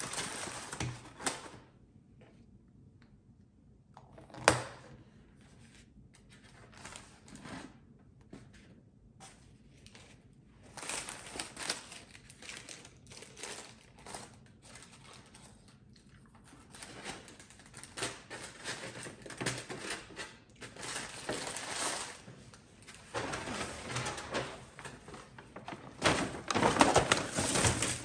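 Waxed paper food liners and a paper takeout bag rustling and crinkling in bursts as takeout food and packaging are handled, with a sharp knock about four and a half seconds in. The loudest, most continuous rustling comes near the end, as the paper bag is picked up.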